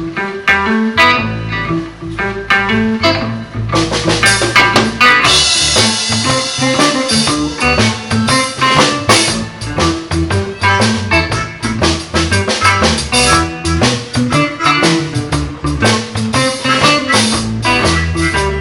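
Live blues band jamming: guitar and bass play a blues groove, and a drum kit with cymbals comes in about four seconds in and keeps a steady beat.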